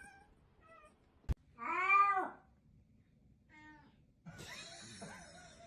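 A cat meowing: a few faint short meows, then one loud drawn-out meow about two seconds in that rises and falls in pitch, with a sharp click just before it. Near the end comes a wavering, noisier cry.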